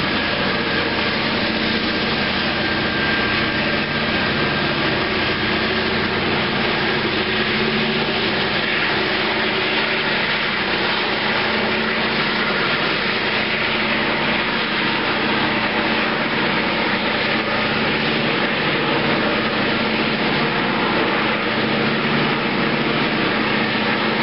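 Diesel freight locomotives running steadily: a constant engine drone with a low hum whose pitch does not change.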